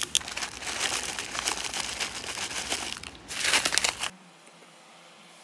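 Crinkling and rustling of food packaging as the foil seal is peeled off a plastic yogurt cup, growing louder near the end and cutting off abruptly about four seconds in.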